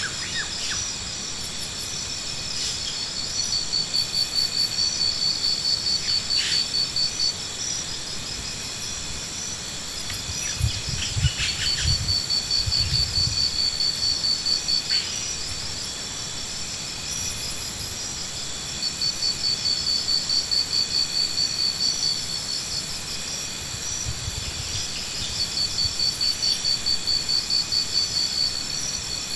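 Insects calling: high chirping trains of rapid pulses, each lasting about three seconds and coming back every several seconds, over a steady high-pitched hum.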